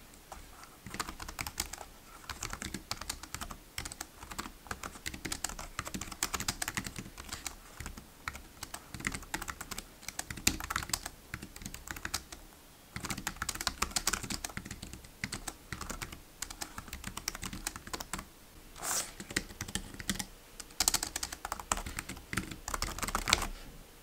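Continuous typing on a ProtoArc XK01 tri-fold Bluetooth keyboard: a fast, dense run of light clicks from its low-profile plastic X-switch keys, with a couple of brief pauses.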